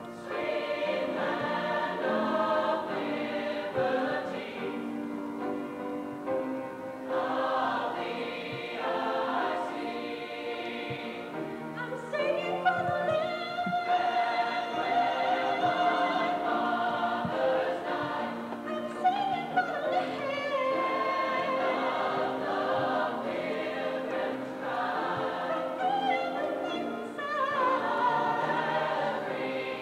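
A school choir of students singing a song together, many voices carrying a sustained melody.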